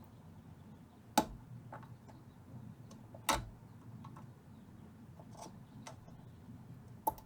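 Sparse sharp clicks and taps of soldering tools against the amplifier's metal chassis during desoldering: three louder ones, about a second in, about three seconds in and near the end, with fainter ticks between, over a faint low hum.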